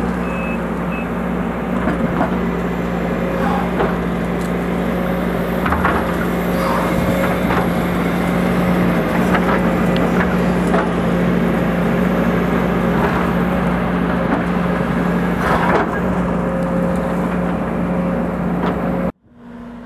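Sumitomo SH240 tracked excavator's diesel engine running steadily while its bucket tears through scrub, with branches cracking and snapping now and then. A travel alarm beeps briefly at the start, and the sound cuts off abruptly near the end.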